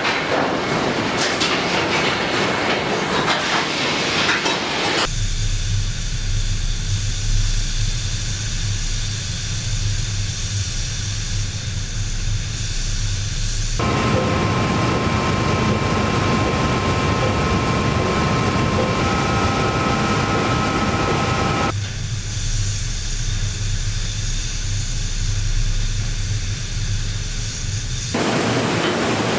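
Car factory machinery ambience: a steady droning hum and hiss that changes abruptly several times, with a few clinks at the start and a hissier stretch in the middle carrying a few steady whistling tones, as from a spray gun and paint-booth air.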